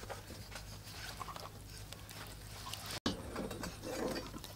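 Faint wet handling of raw fish steaks as hands rub salt into them and shift them on a steel tray, soft scattered rustles and light taps over a low steady hum. The sound breaks off for an instant about three seconds in, and the handling is a little louder just after.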